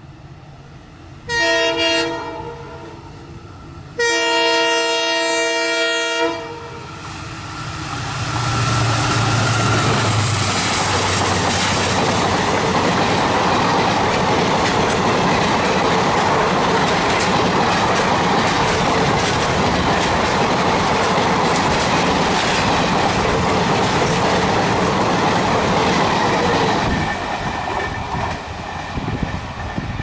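EMD WDP4D diesel locomotive sounding its multi-tone horn, first a short blast and then one of about two seconds, then running past at speed with its 16-cylinder two-stroke engine. The coaches follow in a long steady rush with clickety-clack of the wheels over the rail joints, which fades near the end.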